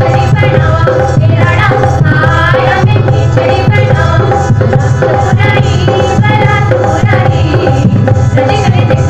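Folk song playing loud for the dance: a singing voice carrying the melody over steady drum accompaniment.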